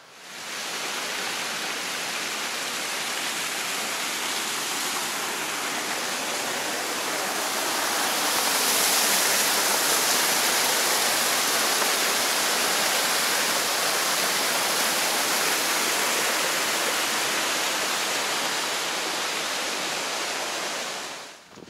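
Water gushing from a large drainage pipe outlet and splashing into a concrete channel below: a steady rush that is loudest about halfway through and falls away near the end.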